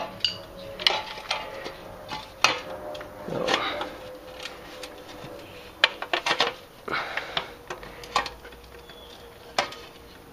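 Screwdriver prying and scraping at the sheet-metal oil baffle inside a Jeep 4.0 valve cover: irregular metallic clicks, scrapes and clinks as the baffle is worked loose.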